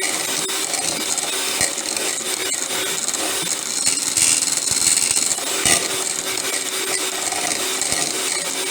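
Electric hand mixer running on medium, its beaters churning and scraping through a thick, chunky half-solid paste in a deep bowl, with a few louder scrapes midway.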